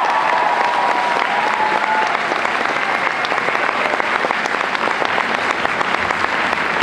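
Audience applauding, a dense patter of many hands clapping, with cheering voices that die out about two seconds in.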